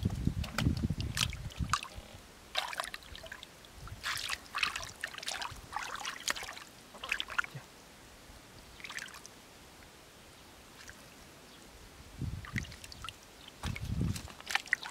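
Hands and bare legs splashing and sloshing in shallow muddy water while groping for fish, in irregular bursts of dribbling and trickling water. Heavier sloshes come at the start and again near the end, with a quieter lull in the middle.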